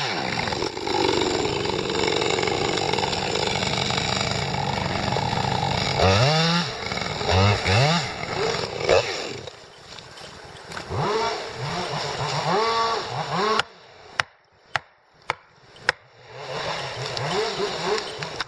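Chainsaw running steadily under load, then revved up and down several times. About two-thirds through it drops out, leaving a few sharp cracks, before it picks up again near the end.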